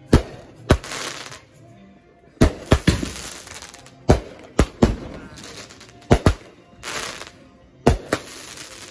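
Consumer fireworks going off: about a dozen sharp bangs, many in quick pairs, some followed by a second or so of crackling.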